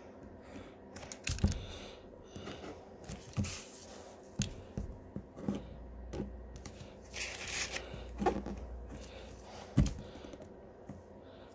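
Paper being handled at a table: irregular rustles, taps and small knocks, with a longer tearing or crumpling rustle about seven seconds in and two sharper knocks, one early and one near the end.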